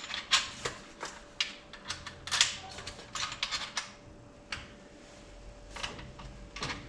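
Metal brackets, spacers and bolts clicking and clinking as they are handled, with a quick run of clicks over the first few seconds and then a few single knocks. A faint steady hum sits underneath.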